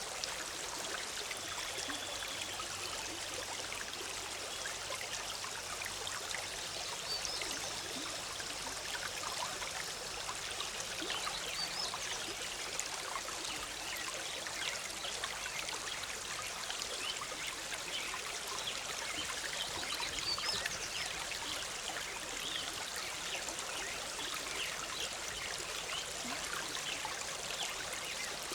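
Shallow forest stream bubbling and trickling over rocks, a steady even flow of water.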